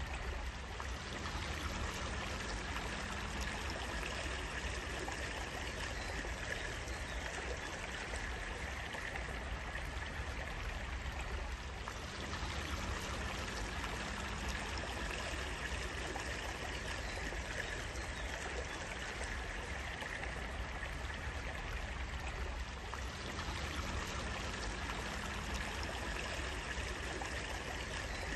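Water running in a small stream, steady and unbroken.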